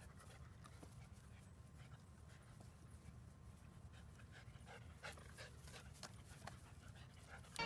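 Faint panting of a dog over a low background hum, with a few soft clicks.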